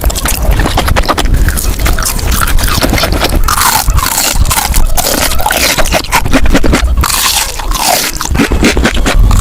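Close-miked mukbang eating sounds played back sped up: a dense run of crunching, scraping and biting noises.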